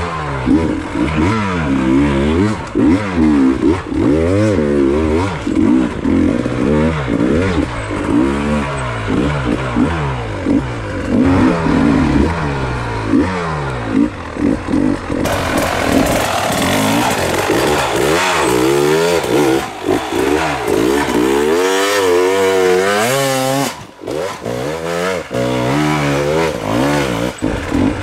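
Dirt bike engine revving up and down over and over, the revs rising and falling every second or so, with a short lull about three-quarters of the way through.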